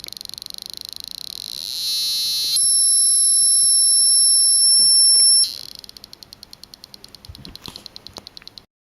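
Piezo buzzer driven through a potentiometer: a rapid ticking buzz, about ten pulses a second, speeds up into a loud, steady, shrill tone about two seconds in. The tone holds for about three seconds, then drops back to rapid ticking that fades out near the end.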